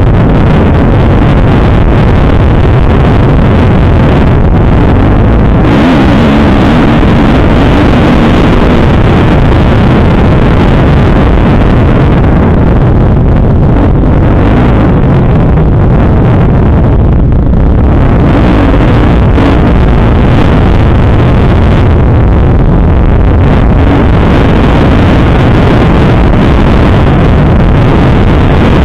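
Kawasaki KX250F dirt bike's 250 cc single-cylinder four-stroke engine, heard loud from an onboard camera while riding a motocross track. The engine pitch rises and falls as the throttle is worked, with wind buffeting the microphone.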